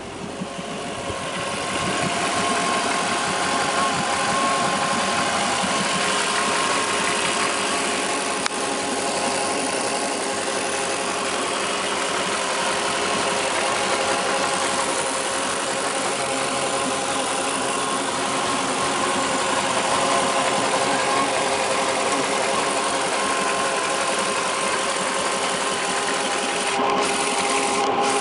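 Inboard engine of a 2008 Malibu Wakesetter 23 LSV wakeboard boat idling steadily, heard up close in the open engine bay.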